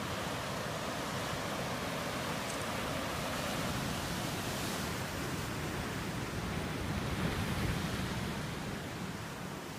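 Ocean surf washing and breaking against a rocky shoreline: a steady rushing noise that swells about seven to eight seconds in and eases off near the end.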